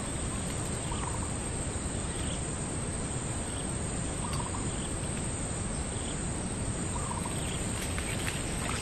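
Tropical undergrowth ambience: a steady high-pitched insect drone, with faint short calls about once a second over a low steady rumble.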